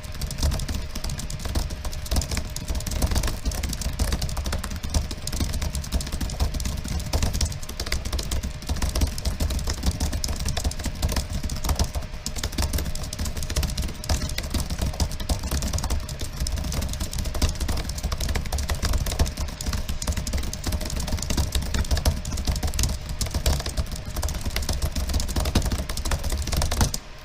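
Fast, continuous typing on a computer keyboard, key clicks coming in a dense unbroken stream over a low rumble.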